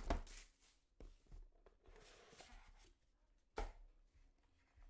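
Faint handling of a trading-card box being opened: light scrapes of the lid and cardboard, with a few soft knocks, the sharpest one about three and a half seconds in.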